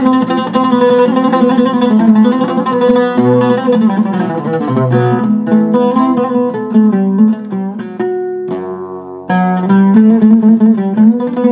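Turkish-style oud with a cedar top and African mahogany back played solo: quick runs of plucked notes across its range. About eight and a half seconds in, one note is left ringing and fading briefly before the fast picking starts again.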